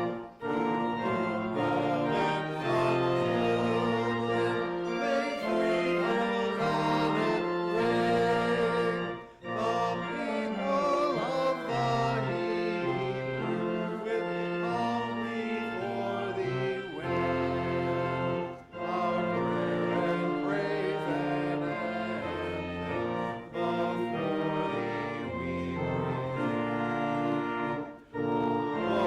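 A hymn played on a church organ in held chords, with the congregation singing along. The music breaks off briefly between lines about every nine seconds.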